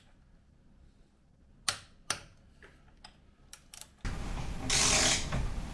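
Socket ratchet clicking in a few short, separate clicks as a bolt on a motorcycle crash-bar bracket is worked. About four seconds in comes a much louder stretch of noise, the loudest thing here, which cuts off abruptly after under two seconds.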